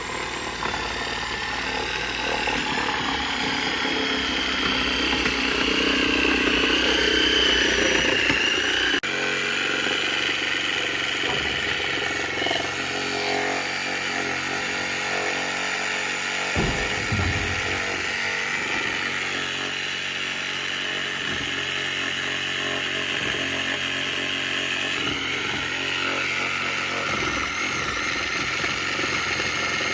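Skid steer engine running steadily while its grapple pulls concrete sonotubes out of the ground. The sound changes abruptly about nine seconds in.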